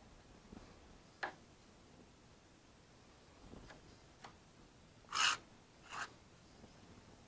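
Small metal putty knife scraping filler: a few light scrapes and taps, then two louder short scrapes about five and six seconds in as the blade is wiped against a second filler-loaded knife.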